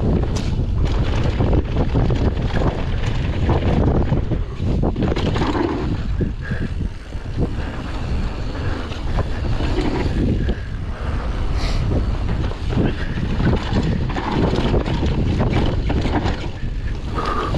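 Wind buffeting the camera microphone of a downhill mountain bike at speed. Many sharp clatters and knocks come from the bike rattling over rough ground.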